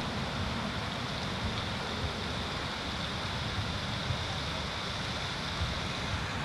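Wind rumbling on the microphone over a steady hiss.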